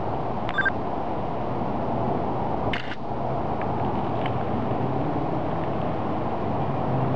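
Steady low rumbling background noise, with a brief high chirp about half a second in and a short click near three seconds.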